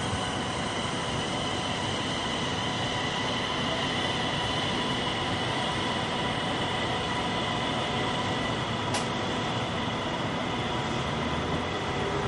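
Electric trains at a station platform: a steady whine of several held tones over a rushing noise as a regional electric multiple unit pulls away. A brief faint high squeak about nine seconds in.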